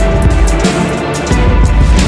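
Background music with heavy bass and a steady beat.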